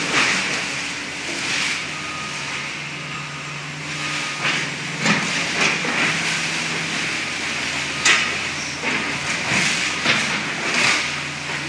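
Excavator engine running steadily while its bucket and demolition clamp work a pile of trash, with irregular crashes and rattles of debris being grabbed and dropped, about ten of them, the sharpest about eight seconds in.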